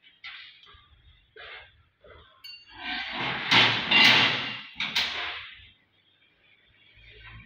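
Metal hand tools and loose parts clattering and clinking as they are handled on a panel saw's table, with a few short rattles early and a busier stretch of clatter with several sharp knocks about three to five seconds in.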